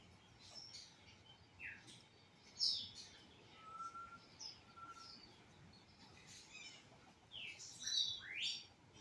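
Pet parrots and parakeets chirping and calling: a string of short chirps and quick falling sweeps, with two short low whistles in the middle, the loudest calls about two and a half seconds and eight seconds in.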